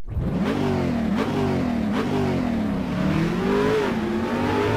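Car engine revving and accelerating, its pitch rising and falling several times, with sharp blips about one and two seconds in and a longer climb that peaks near the end.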